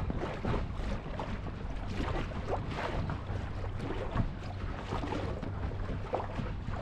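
Lake water splashing and rushing along the hull of a moving boat, in irregular splashes over a steady low hum.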